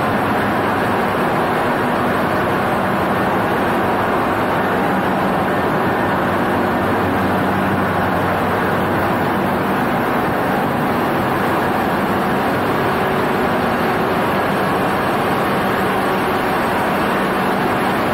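Steady, loud machinery noise of a ship's engine room: a constant hum with an even rush over it that does not change.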